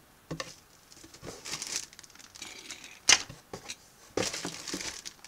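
Plastic parts bags crinkling in irregular bursts as a hand rummages through a cardboard kit box, with one short sharp knock about three seconds in.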